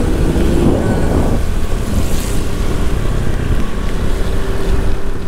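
Wind rushing over the microphone of a camera held by a motorcycle rider, with the motorcycle's engine and its tyres on the wet road underneath. The noise is loud and steady, with a faint steady engine tone in the second half.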